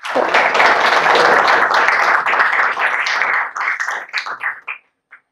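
Audience applauding: a dense round of clapping that thins to a few scattered claps and stops near the end.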